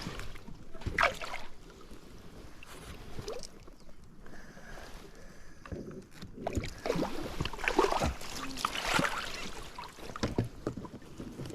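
Water splashing and lapping around a one-man pontoon boat, with irregular knocks and handling noises that grow busier about two-thirds of the way through.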